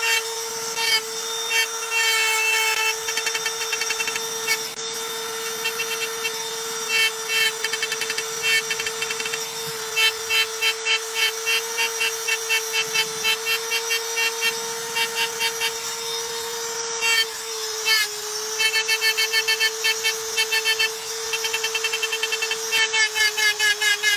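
Hand-held electric rotary engraving tool running with a steady high whine as its bit cuts lines into dark stone. The cutting chatters in quick runs of short pulses, about four or five a second, that stop and start as each stroke is drawn.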